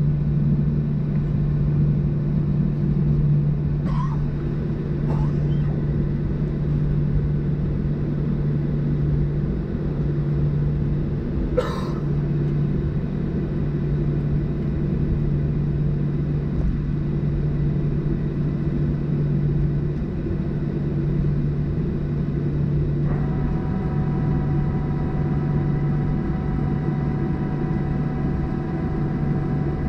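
Cabin drone of a Boeing 737-700 taxiing on the ground, its CFM56 engines at idle, with a steady low hum. A single click sounds about twelve seconds in, and about two-thirds of the way through a set of steady high whining tones joins the drone.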